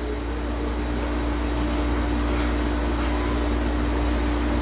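Hydrotherapy pool's swim-current pump running steadily: a constant low hum with one held tone over the hiss of churning water.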